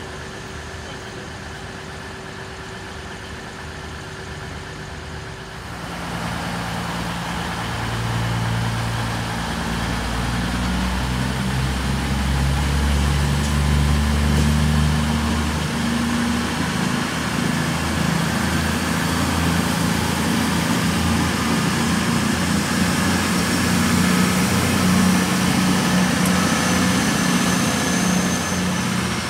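Diesel train's engine running, swelling in volume about six seconds in, with its note shifting up and down in steps.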